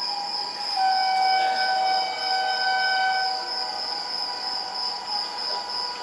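Horn of an approaching Indian Railways WAP-5 electric locomotive sounding one long held note from distance, starting about a second in and fading after about three seconds, over a steady high-pitched drone.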